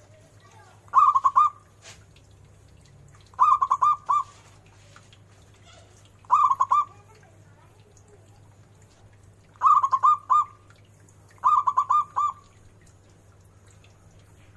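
Zebra dove (perkutut) singing: five short phrases of three to five quick, rolling coos, spaced a few seconds apart.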